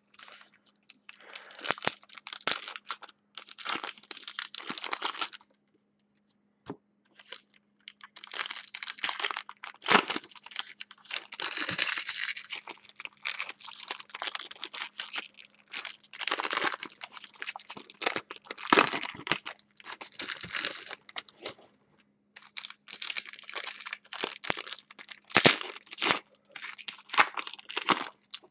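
Foil wrappers of Panini Chronicles football card packs crinkling and being torn open by hand, in long bursts with short pauses between packs.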